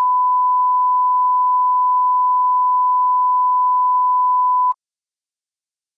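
Steady 1 kHz line-up reference tone that accompanies SMPTE colour bars, one unbroken pure beep that cuts off suddenly about four and a half seconds in.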